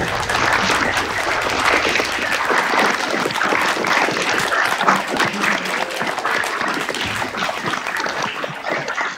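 Applause: many hands clapping steadily together.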